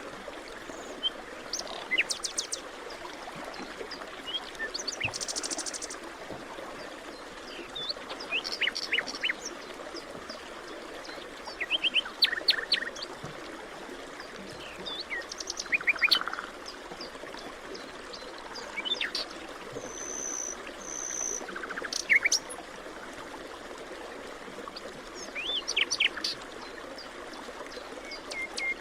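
Forest ambience: several songbirds chirping in short rapid bursts every few seconds, over a steady background hiss.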